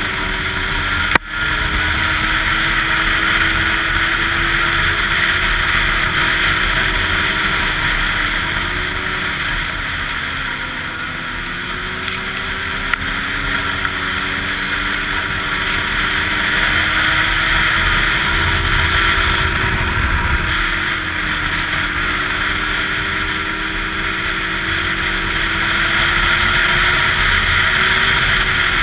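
Snowmobile engine running at speed along a trail, its pitch drifting gently up and down with the throttle over a steady rush of track and snow noise. One sharp click about a second in.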